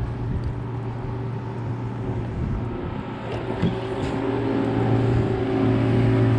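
A motor running steadily with a low, even hum that slowly grows louder.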